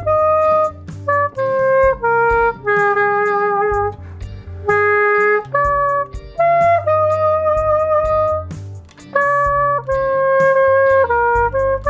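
Nuvo jSax 2.0, a small plastic saxophone-style reed instrument, playing a slow melody of separate held notes, one long note about seven seconds in sung out with vibrato.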